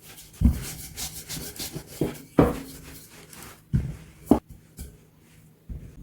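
Dough for gnocco fritto being worked by hand on a work surface: irregular rubbing and pressing strokes, each starting with a soft thump.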